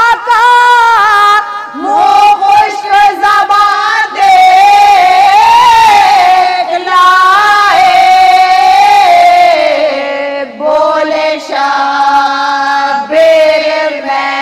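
A woman chanting a marsiya, an Urdu elegy, in long held melodic notes that waver and slide in pitch, with a few short breaks near the end.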